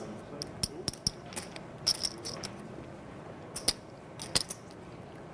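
Poker chips clicking against one another in short irregular clusters as a player handles a chip stack at the table.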